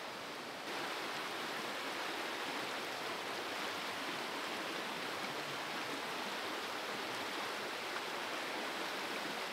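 River water rushing steadily over rapids, a little louder from about a second in.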